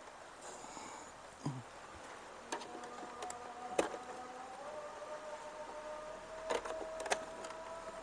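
Epson EB-X06 projector's cooling fan running with a steady whine during start-up, its pitch creeping slightly upward, with a few short sharp clicks.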